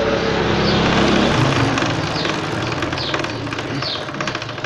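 A motor vehicle going past, its engine hum swelling and then fading, the note dropping in pitch about a second and a half in. A small bird chirps repeatedly over it with short falling chirps.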